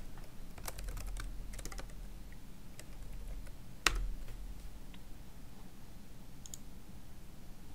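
Computer keyboard typing: a quick run of keystrokes in the first two seconds, then one louder key press about four seconds in as the typed address is entered. A few faint clicks follow later.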